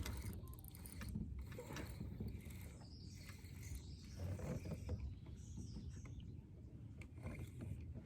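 Fishing reel being cranked, faint and uneven, as a lure is retrieved.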